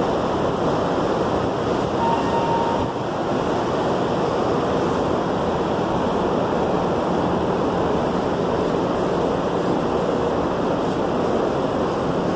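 Steady rushing noise of an underground metro station, heard while riding down an escalator, with a brief faint tone about two seconds in.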